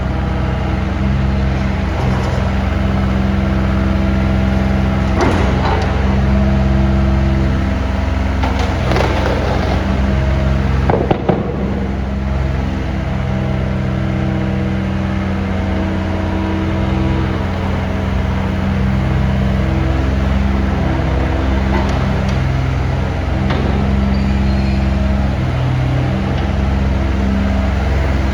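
Hyundai 60-9 midi excavator's diesel engine running steadily, its pitch stepping up and down now and then, with a few sharp metallic knocks about a third of the way in, the loudest just before the middle.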